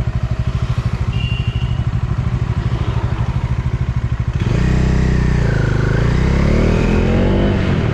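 Bajaj Dominar 400's single-cylinder engine running under way at low revs with an even, rapid thudding beat. About four seconds in, the throttle opens and the engine gets louder, its pitch dipping briefly and then climbing.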